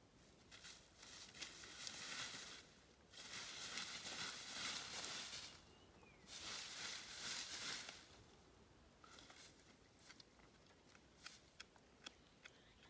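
Faint rustling and tearing in dry grass and leaf litter as a dhole pulls and feeds at a sambar carcass, in three bouts, then a run of small sharp clicks and crunches near the end. A brief faint whistle about six seconds in.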